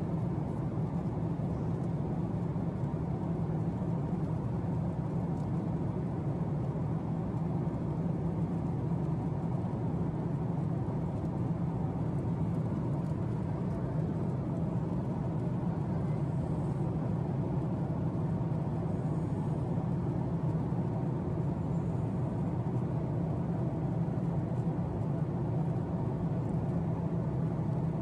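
Steady low hum of a Boeing 767-400's cabin in cruise: jet engines and airflow running evenly, with no change in pitch or level.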